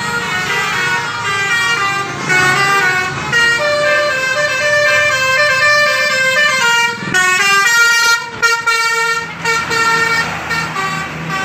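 Bus 'telolet' horn: a multi-tone musical air horn playing a melody of short notes that step up and down in pitch, repeated again and again, breaking off briefly about seven seconds in.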